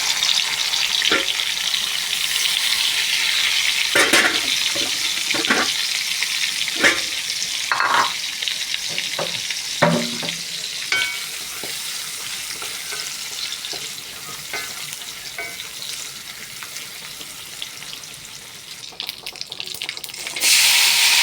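Food sizzling in hot oil in a pan, with a spatula knocking and scraping against the pan now and then. The sizzle slowly dies down, then flares up loud again near the end.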